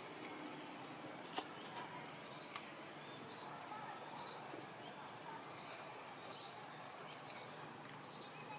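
Outdoor forest ambience: a steady high insect drone with short, high, falling chirps repeating every second or so. There is a single sharp click about a second and a half in.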